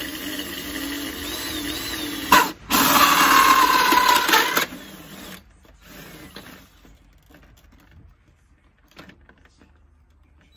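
Cordless drill with a hole saw cutting through a plastic PVC soffit panel. The motor runs steadily, then about two seconds in the saw bites into the plastic with a loud cutting noise for about two seconds before stopping. A few faint knocks follow.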